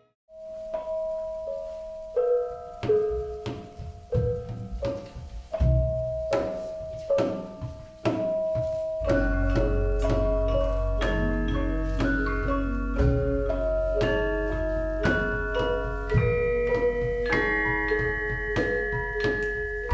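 Central Javanese gamelan playing: struck bronze metallophones and kettle gongs ringing out in single notes, then growing into fuller, denser ensemble playing with a deep low tone about nine seconds in.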